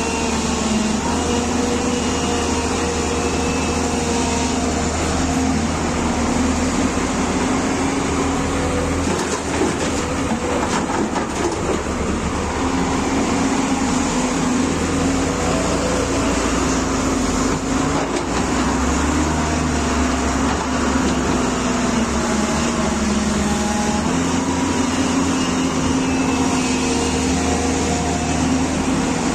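Excavator's diesel engine running steadily under work, its pitch dipping briefly several times and recovering, with hydraulic and digging noise behind it.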